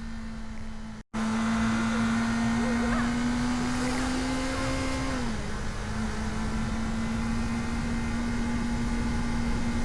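Kawasaki motorcycle engine running at a steady cruise under a low rush of wind noise. Its note drops a little about halfway through as the revs ease off, after a short break about a second in.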